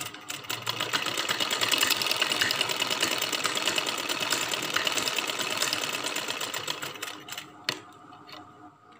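Domestic sewing machine stitching through cotton fabric: a fast, even rattle of the needle for about seven seconds, then dying away, with a single sharp click near the end.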